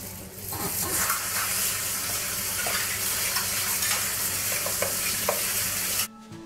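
Wet, squelching mixing noise of a plastic-gloved hand rubbing kimchi paste of red pepper, radish and carrot strips into salted napa cabbage leaves, with small scattered ticks; it stops abruptly near the end.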